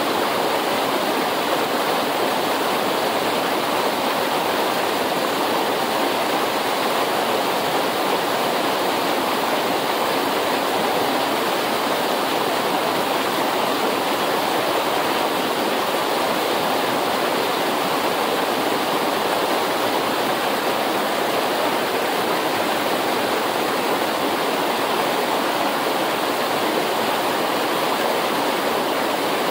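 Fast-flowing mountain river rushing steadily, a loud even wash of water with no breaks.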